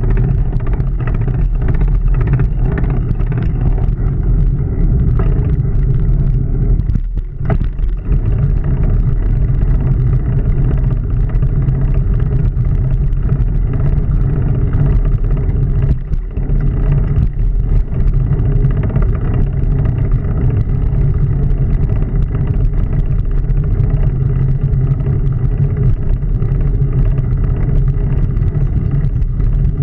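Riding noise from a bicycle on a paved path, picked up by a handlebar-mounted GoPro: a steady low rumble with many small rattles and knocks from the bike's vibration, easing off briefly twice.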